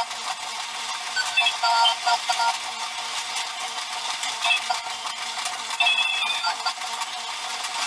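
Plastic pig escalator toy running on about 4.5 volts: the motor-driven stair steps and the small plastic pigs clatter and click as they ride up and slide down the track. Brief snatches of the toy's electronic tune come through the rattle.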